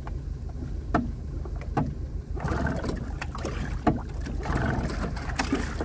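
Outboard motor running just after being pull-started, a steady low rumble with a few sharp clicks. About two and a half seconds in it grows louder and fuller.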